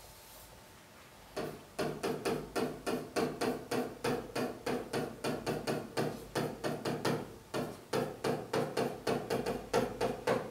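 Felt-tip marker squeaking on a writing board in short, pitched strokes, about three a second, as letters are written. The strokes begin about a second and a half in.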